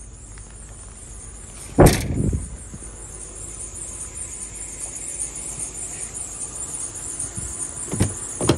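A single loud thump about two seconds in as goods are loaded into a vehicle, then two lighter knocks near the end, over a steady hiss.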